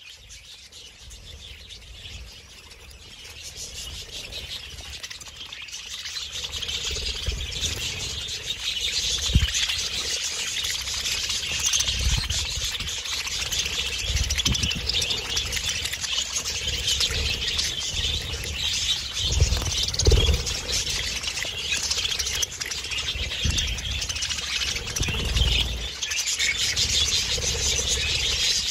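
Flock of budgerigars chattering and warbling in a dense, continuous twitter that builds up over the first several seconds, then holds steady. A few dull low thumps fall here and there.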